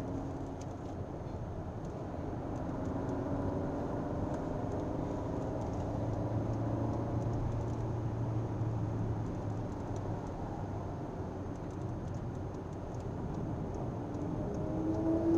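Car engine and tyre-and-road noise heard from inside the cabin while driving at speed. The engine note climbs as the car speeds up through the first half, then eases off.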